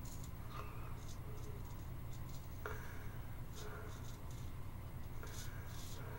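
Straight razor scraping stubble off a lathered chin in a series of short, faint strokes, over a steady low hum.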